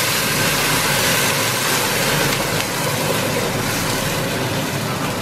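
Water poured from a kettle into a hot pot of fried onions, sizzling and hissing loudly as it hits the hot pan, with the splash of the pour. The sizzle stays steady and eases a little toward the end.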